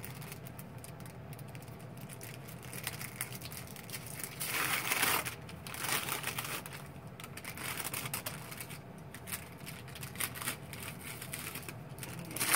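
Paper peel pouch of a sterile dressing being peeled open and its wrapper crinkled: a run of small crackles and clicks, with a louder rustle of paper about four and a half seconds in.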